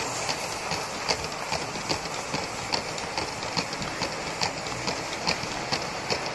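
Gauge 1 model steam locomotive and coal hopper wagons rolling past: irregular clicks of wheels over rail joints, about two a second, over a steady hiss.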